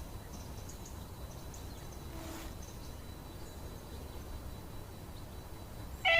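Faint outdoor background noise: a low steady rumble with a few faint, short high chirps.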